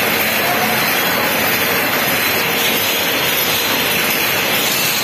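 Tinsel garland-making machine running, a loud, steady mechanical whir and rattle with no pauses.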